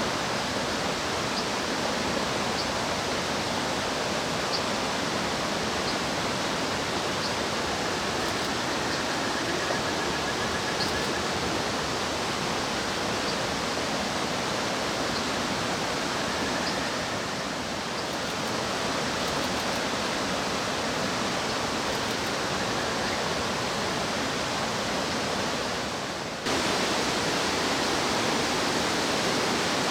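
Rushing mountain-stream water, a steady even rush, with faint short high chirps scattered through the first half. The water sound steps up abruptly and slightly louder about 26 seconds in.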